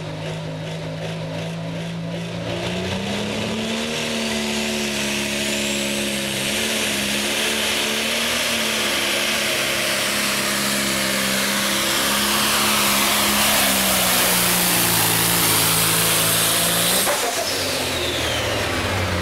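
A pulling tractor's engine running hard through a pull: its pitch climbs over the first few seconds as it launches with the weight sled, holds at high revs, then drops sharply about 17 seconds in as the pull ends.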